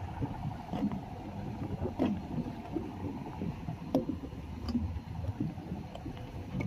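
Small waves lapping and sloshing around the posts of a wooden jetty, with wind on the microphone and a couple of light knocks, about two and four seconds in.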